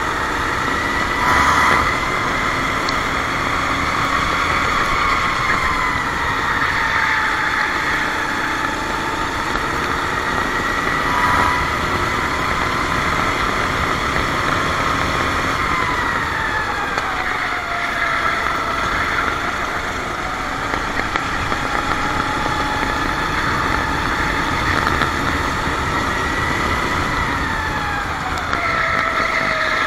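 Racing kart engine at high revs, its pitch dropping off several times as it slows for corners and climbing again as it accelerates out. A couple of brief knocks near the start and about a third of the way in.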